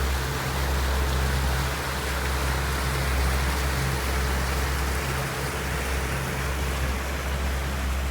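Pontoon boat under way: its motor drones steadily under an even rushing noise of wind and water.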